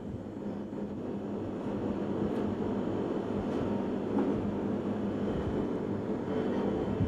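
Steady low mechanical hum with a rush of air, growing slightly louder over the first couple of seconds; no distinct knife or board sounds stand out.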